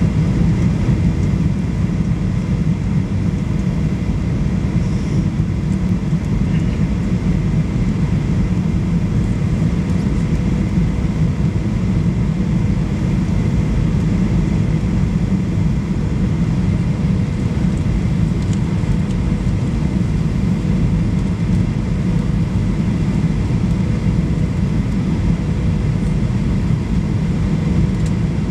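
Steady cabin noise inside a Boeing 737 Next Generation airliner in flight: a deep, even rumble of the engines and rushing air, with a faint steady hum over it.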